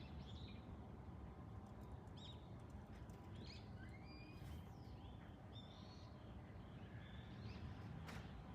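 Small birds chirping in short scattered calls over a faint, steady low background rumble.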